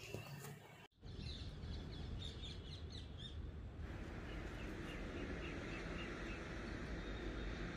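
Small birds chirping in runs of short, repeated high calls, first higher-pitched, then a lower run about two calls a second, over a steady background hiss with a low rumble.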